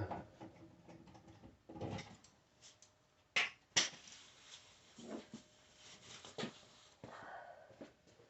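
Scattered sharp knocks and clicks of wooden pieces and tools being handled, about six in all, the loudest two close together about three and a half seconds in, followed by a short scraping rustle near the end.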